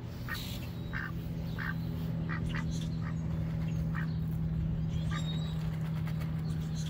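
Two white domestic ducks quacking in short, separate calls while eating feed pellets from a bowl, about eight calls, most in the first few seconds, over a steady low hum.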